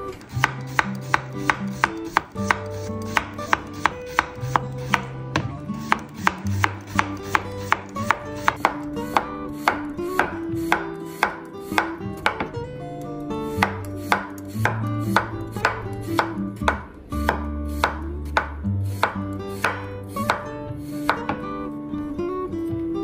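A knife chopping on a cutting board in a steady rhythm of quick cuts, a little over two a second, stopping about a second before the end. Acoustic guitar music plays underneath.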